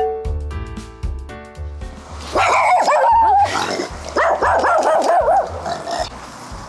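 A dog barking in two bouts of rapid barks, starting about two seconds in. Light plucked background music plays before the barking begins.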